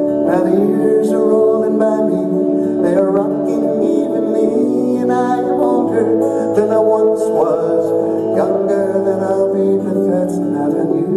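Live folk-rock music: fingerpicked acoustic guitar and band accompaniment under a male voice singing a melody.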